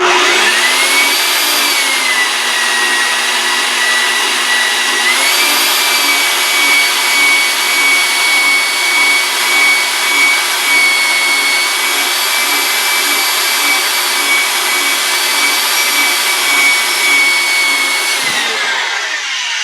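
Inexpensive import variable-speed portable bandsaw with a 24 TPI bi-metal blade, its motor running with a high whine while cutting the end off a small metal tube. The pitch dips shortly after start, rises again about five seconds in and holds steady, then falls as the saw winds down near the end.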